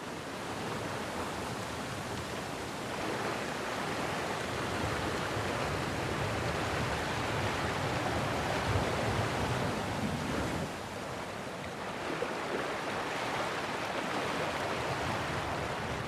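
A steady rushing noise, like surf or running water, that swells and eases slowly.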